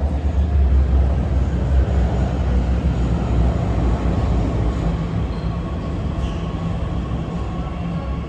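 Line 6 metro train running into the station behind platform screen doors and slowing to a stop: a heavy low rumble that eases off gradually, with a faint steady ringing tone above it.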